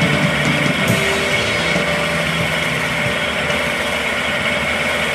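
Homemade wood lathe running steadily, with a hand chisel held against the spinning wooden spindle as it is turned.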